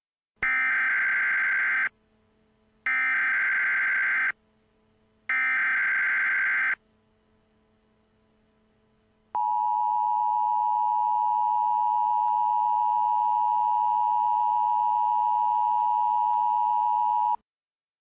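Emergency Alert System header: three short bursts of SAME digital data screech, each about a second and a half long, then a steady alert tone held for about eight seconds. It signals the start of an emergency message, here a special weather statement.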